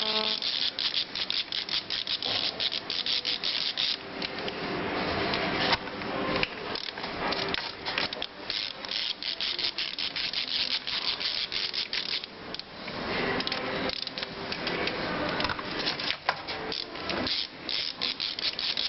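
Irregular scraping and rubbing of metal parts, made of many short uneven strokes, during the teardown of a manual gearbox.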